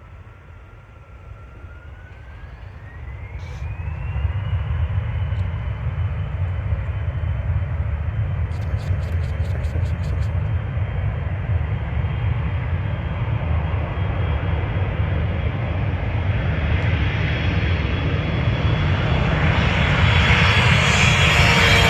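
Airplane engines spooling up at takeoff, a whine rising in pitch over the first few seconds, then running steadily at full throttle. The roar and hiss grow louder near the end as the aircraft comes closer.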